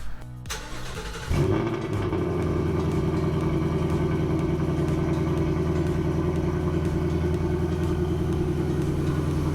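2020 Ford Mustang GT's 5.0-litre V8 starting just over a second in after a click, then idling steadily.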